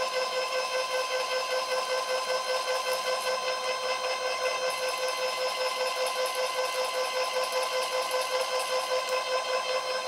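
NEMA 17 stepper motor running at a constant speed, spinning the machine's two-blade gripper that strips and twists the wire: a steady high whine with overtones, pulsing evenly several times a second.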